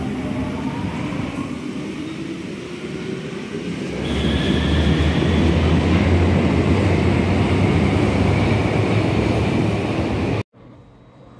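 Berlin U-Bahn train pulling out of an underground station: a rising motor whine as it gets under way, then from about four seconds in a louder, steady rumble of wheels on rails as it picks up speed. The sound cuts off abruptly near the end, leaving a much quieter station hum.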